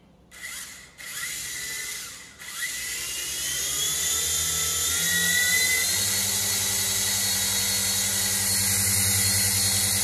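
V-Max HX708 toy RC helicopter held in the hand, its electric motors and coaxial rotors spinning up: two short blips of throttle, then a rising whine with rotor hum that climbs for a few seconds and holds steady at full throttle.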